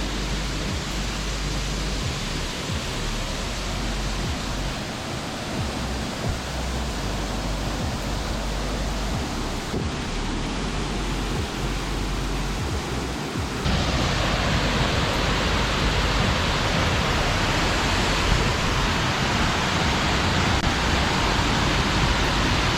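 Steady rush of falling water from a large waterfall. About two-thirds of the way through it becomes suddenly louder and brighter.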